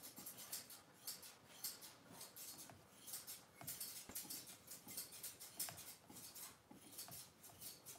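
Grooming shears snipping through a dog's thick curly coat: quick, faint, irregular snips, several a second.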